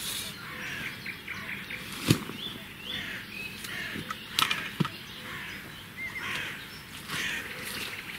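Small birds chirping and twittering. A sharp knock comes about two seconds in, the loudest sound, and two lighter knocks follow a couple of seconds later.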